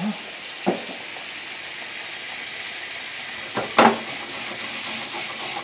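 Peach brandy pan sauce sizzling and bubbling steadily in a skillet as it cooks down, with a short knock about half a second in and two sharper knocks against the pan near four seconds in.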